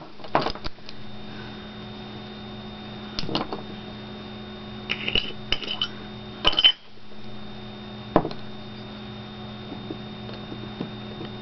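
A steady low electrical hum with a few scattered light taps and clicks, the sharpest about six and a half seconds in.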